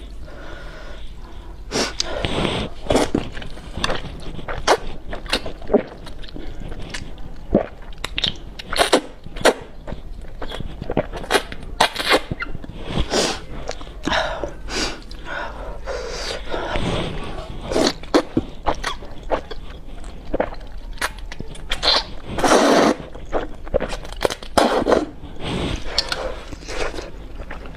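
A person eating hot-and-sour noodles close to the microphone: a quick, irregular run of slurps and wet chewing sounds.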